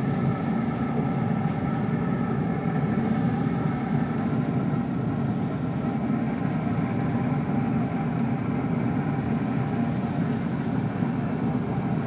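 Hot outdoor grill running with a steady low hum and a faint whine, unchanging throughout.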